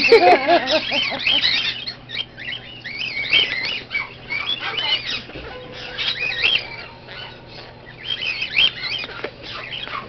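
Parrots chattering and squawking: many short, high-pitched calls that rise and fall, coming in clusters, loudest in the first second.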